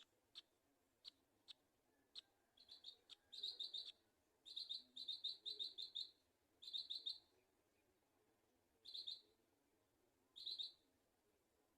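High-pitched bird calls. First a few single sharp chips, then from about two seconds in, repeated bouts of fast, rapid-pulsed chirping, each lasting under a second.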